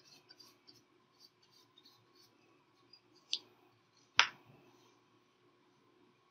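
Acrylic paintbrushes working on paper: faint brushing rustles, a light click about three seconds in, and a sharp tap just after four seconds as the brushes are handled.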